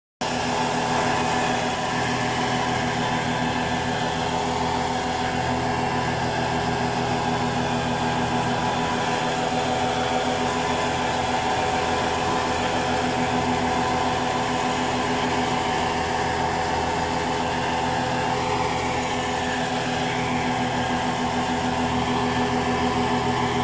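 No-till seeder machine and the engine driving it running steadily, a constant-pitch mechanical drone with no change in speed.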